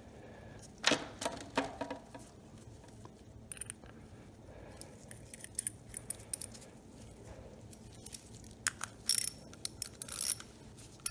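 Small-engine carburetor parts (float bowl, float and bowl bolt) handled in gloved hands: scattered light clicks and taps of small metal and plastic parts. There are a couple of sharper clicks about a second in and a cluster of clicks with rustling near the end.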